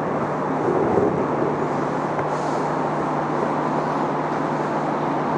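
Steady rushing background noise with a low hum underneath, holding at one level with no clear events.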